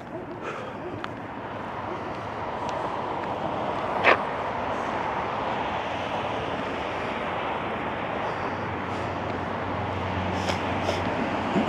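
Steady rushing of water flowing in an irrigation ditch, growing louder, with a single sharp tap about four seconds in.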